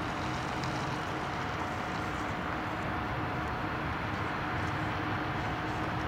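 Electric locomotive running slowly on the approach: a steady rumbling drone with two faint steady humming tones in it.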